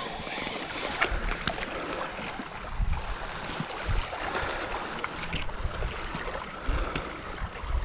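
Wind on the microphone and water lapping around a small fishing boat, with scattered light clicks and a few dull knocks as a small crappie is swung in and handled.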